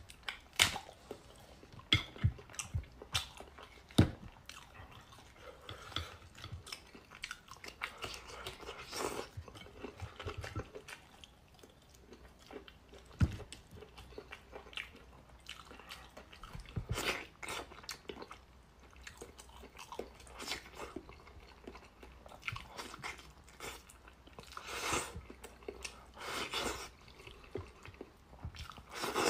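Close-miked chewing and biting of braised meat, with wet tearing as meat is pulled off the bone by hand. There are scattered sharp clicks and knocks, the loudest near the start and about a third of the way in.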